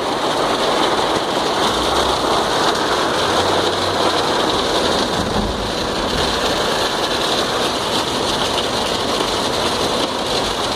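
Heavy rain pouring steadily on a vehicle, heard from inside the car.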